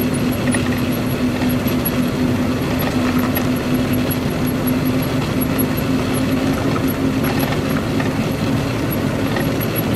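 Steady drone of a truck driving at cruising speed, heard from inside the cab: a constant engine hum under an even wash of road and wind noise.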